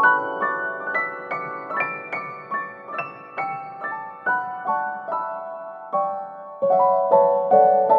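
Background piano music: a gentle melody of single notes, about two to three a second, climbing and then falling, with fuller, louder notes coming in near the end.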